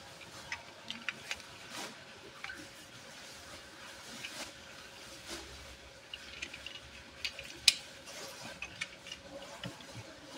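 Handling noise of a small die-cast metal toy car: scattered light clicks and taps as it is turned over in the hands, with one sharper click about three-quarters of the way through. A soft knock near the end as the car is set down on the wooden track.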